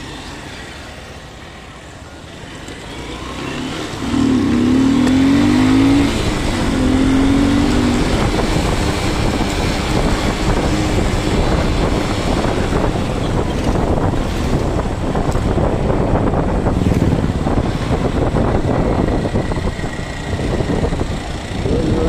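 Honda Shine motorcycle pulling away and accelerating about four seconds in, its engine note rising, then riding on steadily under a heavy rush of wind noise on a cheap earphone microphone.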